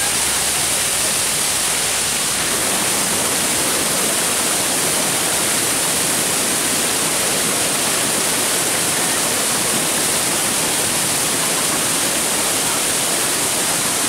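Water rushing steadily over boulders in the small cascades of a forest waterfall, an even, unbroken rush.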